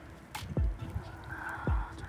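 A few short, low thuds and a rustle of handling close to the microphone while a freshly caught crucian carp is held in the landing net.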